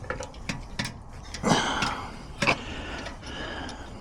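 Light handling clicks and knocks, with a louder scraping rustle about a second and a half in and a sharp knock about a second later.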